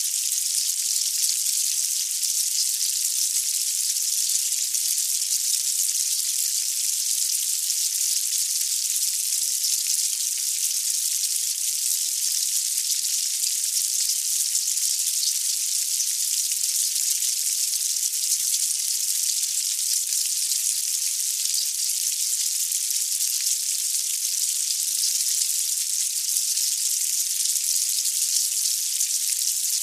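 A mass of fire ants crawling and scurrying, heard close up as a dense, steady, high-pitched crackling hiss with no low end.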